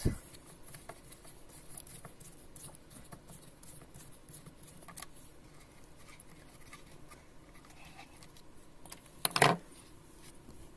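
Screwdriver turning out a small screw from the plastic housing of a Vitek VT-1201 iron: faint scratching and clicking, with a short knock at the start and a louder clatter about nine and a half seconds in.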